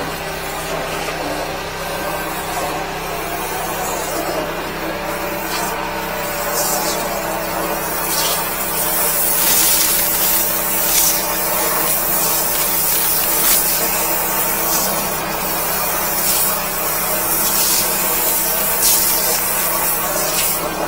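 High-pressure sewer jetter at work: a steady spray hiss of water driven through the hose and jetting nozzle in the drain line, over the steady hum of the 13-horsepower jetter engine. The hiss grows louder about eight seconds in, with short uneven surges.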